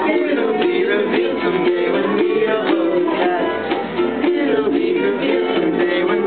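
Ukulele strummed in a steady rhythm, playing the chords of an acoustic song.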